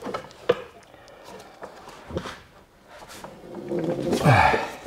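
Steel tire irons clicking and knocking against a spoked motorcycle rim as a worn Heidenau K28 sidecar-rig tire is levered off by hand. Near the end comes a louder, drawn-out squeal that falls in pitch.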